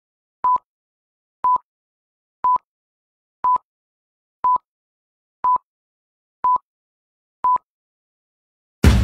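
Eight short, identical electronic beeps at one steady pitch, one a second, with dead silence between them, like a countdown timer. Music with drums comes in just at the end.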